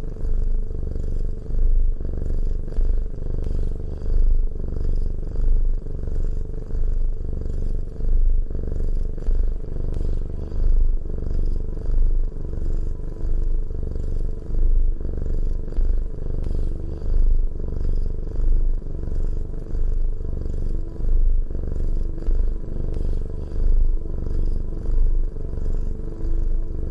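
Domestic cat purring steadily close to the microphone: a low rumble that swells and fades with each breath, about once every second or so.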